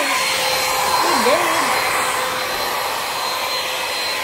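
Handheld vacuum cleaner running steadily, its motor giving a constant rushing hum with a thin high whine.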